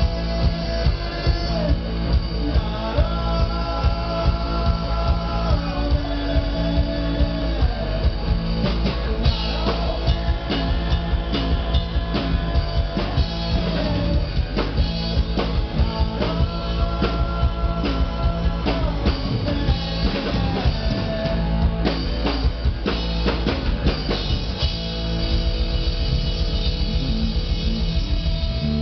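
Live rock band playing: a drum kit keeps a steady beat under guitar.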